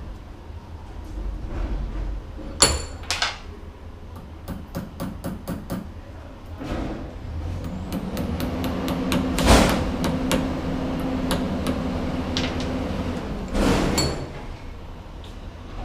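Metal workshop handwork: sharp clinks and taps, a quick run of light ticks, and two louder strikes, with a steady low hum through the middle.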